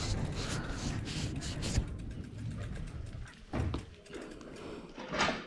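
Microphone handling noise and low rumble as a phone is held against a mountain bike's handlebar, with a run of small clicks and knocks and a louder rub near the end.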